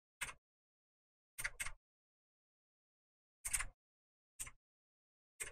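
Short, sharp clicks from a computer mouse and keyboard while working in CAD software, six in all, one of them a quick pair about a second and a half in, with dead silence between.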